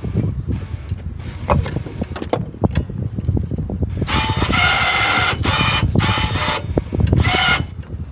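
Repeated metal knocking and clanking from work on a backhoe's hydraulic cylinder, over a low rumble. From about four seconds in, a loud, high screeching squeal comes three times.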